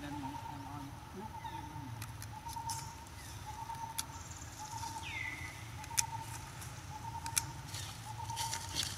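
Quiet outdoor background with a bird repeating a short mid-pitched note about once a second, a falling chirp about five seconds in, and a few light clicks.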